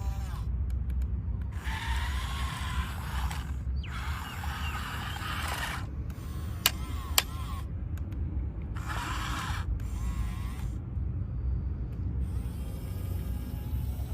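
Small electric motors and plastic gears of a remote-control toy JCB digger whirring in several bursts of a few seconds each, with two sharp clicks near the middle, over a steady low hum.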